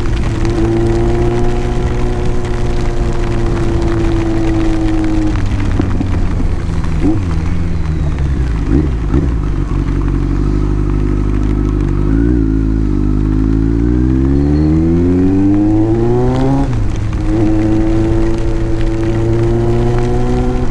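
Kawasaki Z900 motorcycle engine under way, cruising at a steady note, easing off about five seconds in, then revving up with a rising pitch and dropping suddenly near the end as it shifts up, before settling back to a steady cruise.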